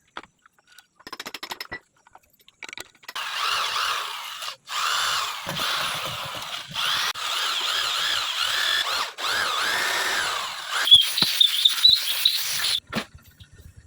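Handheld power drill running under load in several bursts, its pitch wavering as it bites into the stripped thread being repaired, with brief stops between bursts and a higher squeal near the end.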